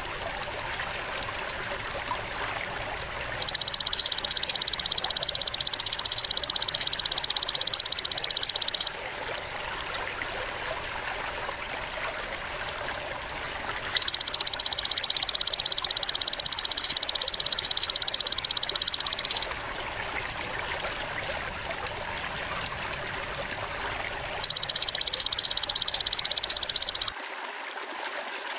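Belalang emas (golden grasshopper) insect call used as a bird-tutoring track: three long, even, high buzzing trills, two of about five seconds and a shorter one near the end. Between the trills there is a faint background of running water.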